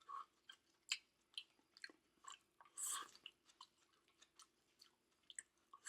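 Close-up chewing and biting of Chinese takeout food: soft, irregular wet clicks and crunches, the loudest about a second in and near the middle.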